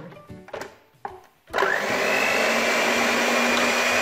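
Electric mixer switched on about a second and a half in, beating a thin cake batter, its motor whine rising briefly as it spins up and then running steadily. A few light knocks come before it starts.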